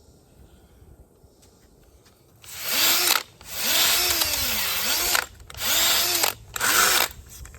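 Power drill spinning a Velcro-backed sanding pad against the curb-rashed edge of a wheel rim. It runs in four bursts over the second half, and its motor whine dips and rises as the pad bears on the rim.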